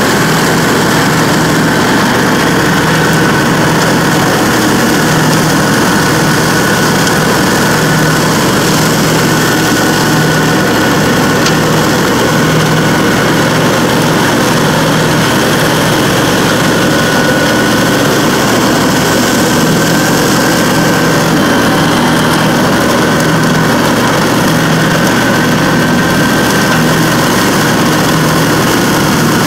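Dixie Chopper zero-turn mower running steadily with its blades engaged, pushing and chopping up dry leaves. A constant engine drone carries a steady high whine above it, with no change in speed.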